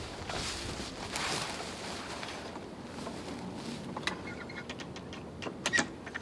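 Pull-out vehicle side awning being set up by hand: canvas rustling, then a run of sharp clicks and knocks from its metal frame and legs, the loudest near the end.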